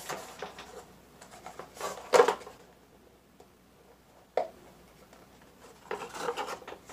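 Plastic clicks and knocks from handling a GoPro Hero 7 Black camera and the plastic packaging mount it is clipped into, as it is worked to come free. The loudest knock comes about two seconds in, and a flurry of clicks near the end.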